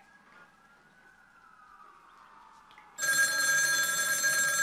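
A desk telephone's bell ringing loudly, starting suddenly about three seconds in.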